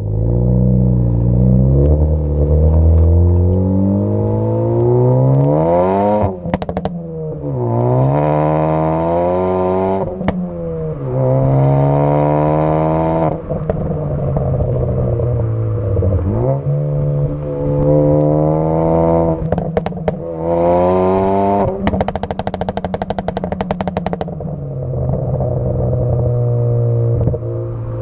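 Tuned, turbocharged Ford Focus ST engine revved up about four times and let fall back, its exhaust popping and crackling on each lift-off. A longer run of rapid crackles comes near the end.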